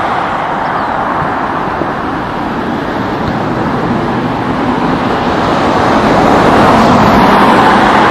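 Loud, steady rushing noise with no distinct events, growing a little louder in the second half.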